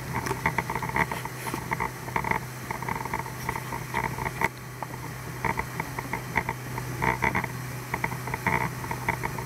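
Mercury 115 hp four-stroke outboard running steadily under way, a constant low hum, beneath irregular bursts of rushing, splashing water from the hull and wake.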